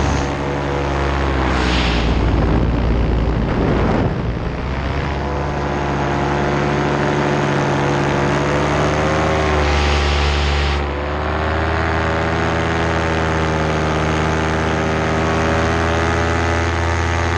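Paramotor engine and propeller running steadily in flight. The engine note dips and comes back up about four seconds in and again about eleven seconds in.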